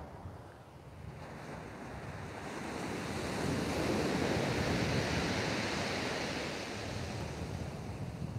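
Sea waves breaking and washing up a steep shingle beach, the surf swelling to its loudest around the middle and easing off, with wind on the microphone.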